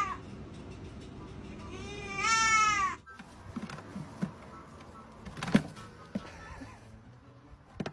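A baby goat bleats once, a single wavering call about two seconds in. Afterwards come a few soft knocks and clicks, the sharpest one about halfway through.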